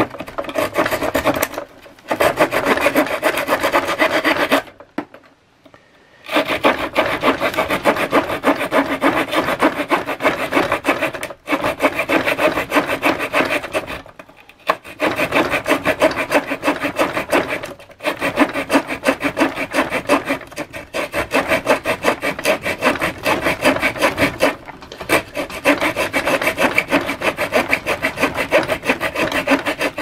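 SOG Paratool multi-tool worked rapidly back and forth on wood: a steady rasping in long runs, broken by short pauses, the longest about five seconds in.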